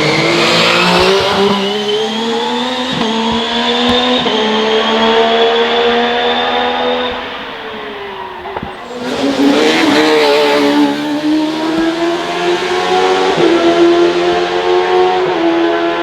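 Hillclimb racing car's engine at high revs, pitch climbing with quick upshifts, dropping as the driver lifts about halfway through, then climbing hard again through the gears.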